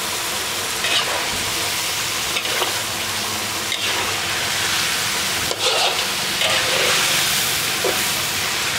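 Pieces of catfish sizzling in hot oil in a steel wok, stirred and scraped with a spatula every second or so.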